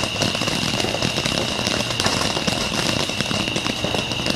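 Ground fountain firework spewing sparks: a steady hiss full of dense crackling.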